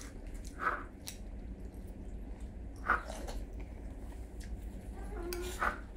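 A person eating at close range, biting and chewing food, with a couple of short mouth sounds.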